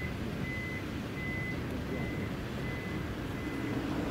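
A vehicle's reversing alarm beeping: one steady high beep repeating evenly, about three beeps every two seconds, fading near the end, over a low steady rumble.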